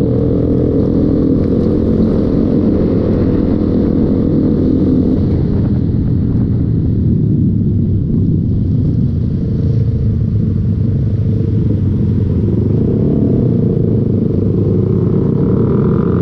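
Motorcycle engine running steadily while riding, under a heavy low rumble of wind on the microphone.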